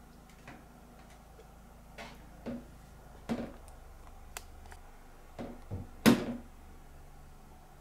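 A series of light knocks and taps, unevenly spaced, with the loudest about six seconds in: a cat's paws and claws shifting on a plastic toilet seat.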